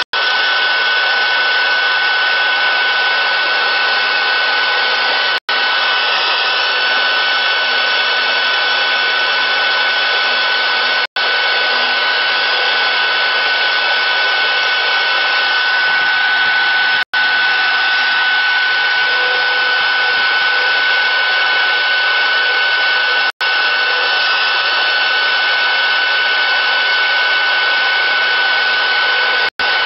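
CNC router spindle running steadily while carving into a wooden block: a constant high whine over the hiss of the cutter. The sound drops out for an instant about every six seconds.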